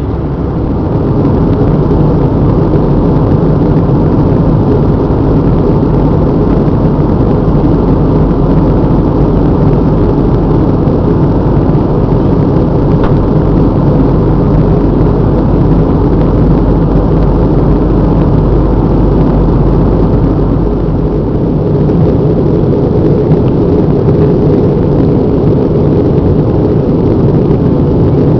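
Steady cabin noise of an Airbus airliner on descent: engine and airflow noise heard from a window seat, heaviest in the low range. A deep underlying hum drops away about three quarters of the way through.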